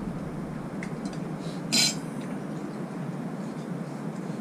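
Spoons and utensils clinking lightly against bowls and plates over a steady low room hum, with one louder short, sharp clink just under two seconds in.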